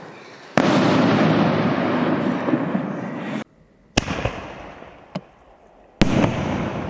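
Aerial canister firework shells bursting: three loud bangs, about half a second, four seconds and six seconds in, each trailing off slowly, with a smaller pop between the last two.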